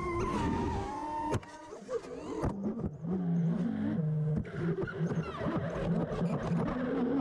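FPV freestyle quadcopter's brushless motors whining, their pitch rising and falling with throttle changes, with a few sharp clicks along the way.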